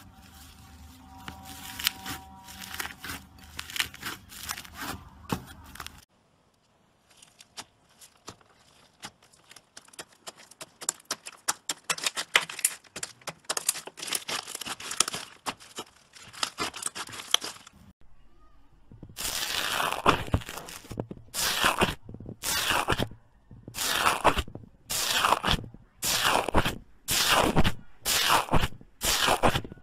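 Slime being squeezed and kneaded by hand, crackling and popping. For the last third, a metal tool presses into a crunchy slime, giving loud separate crunches about once a second.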